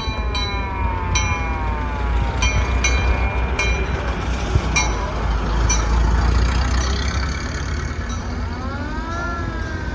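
Vehicle engines rumbling under warning horns: a wail that falls in pitch at first, then several short high toots, and a wail that rises then falls near the end.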